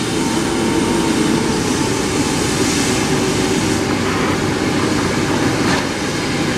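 Jet engines of an Airbus A330 freighter running as it moves along the runway: a steady, loud noise with a low hum.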